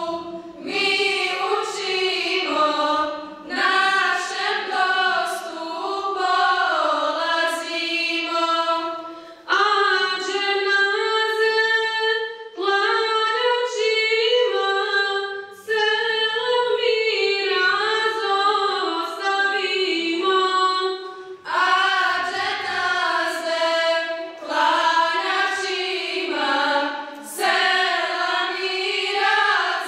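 A choir of high voices singing an ilahija, a Bosnian Islamic devotional hymn, unaccompanied, in sung phrases with short breaths between them about a third, half and two thirds of the way through.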